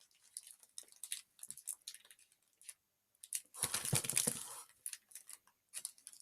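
Plastic snack packaging crinkling and rustling in short crackles as it is handled. A louder, longer rustle comes about four seconds in.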